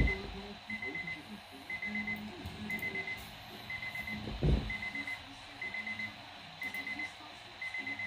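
Midland weather alert radio sounding its alarm for a received Winter Storm Warning: a group of four quick high beeps repeating about once a second. A dull thump comes about halfway through.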